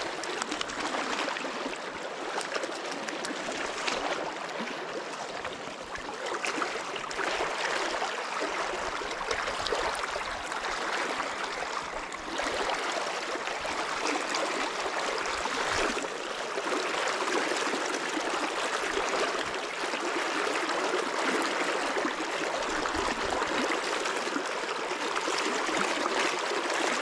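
River water rushing and burbling over rocks in a shallow side channel: a steady stream sound, a little louder from about halfway through.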